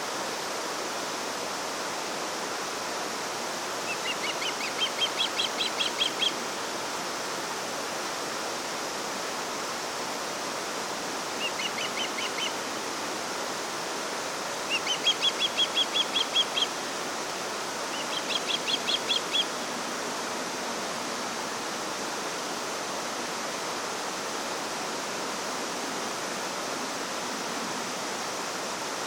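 Steady rush of flowing water, with a songbird singing four short trilled phrases of quick repeated notes over it, spread through the middle of the stretch.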